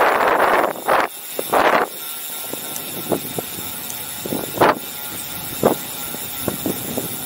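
Wind buffeting the microphone of a handlebar-mounted camera on a moving bicycle: loud gusty rushes in the first two seconds, then a steadier rush with a few sharp knocks and rattles from the bike.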